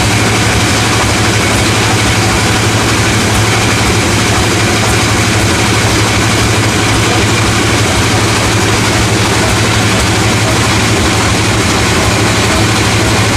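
Sawmill machinery running steadily: a loud, continuous engine-like drone with a strong low hum that does not change.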